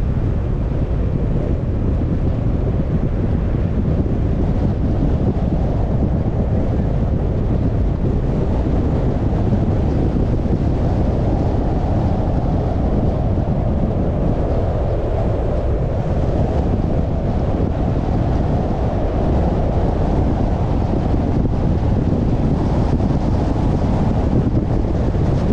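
Steady low rumble of a moving car's road and wind noise, with wind buffeting the microphone.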